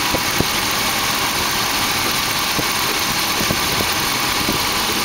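Dodge Ram 1500's 4.7-litre V8 idling steadily with the A/C compressor engaged, with a few faint ticks. The worn condenser fan is not yet turning.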